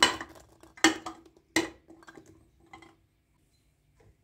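Three sharp knocks of hard objects, each with a brief ring, followed by a little lighter clatter.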